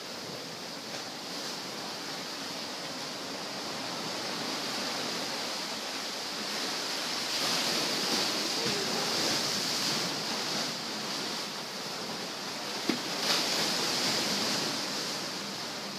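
Small sea waves washing onto the beach, a steady hiss that swells louder a few times, with one sharp knock about thirteen seconds in.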